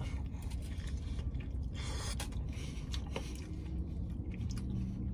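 A man biting into a burrito and chewing it, over a steady low rumble.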